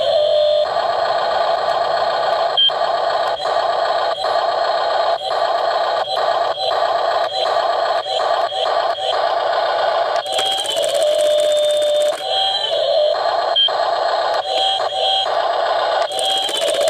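Hydraulic-style breaker hammer on a 1:16 Double E RC excavator chattering rapidly against ice, with the whine of the model's small electric drive. The hammering stops for a few seconds about ten seconds in, when a gliding whine takes over, then starts again and stops briefly near the end.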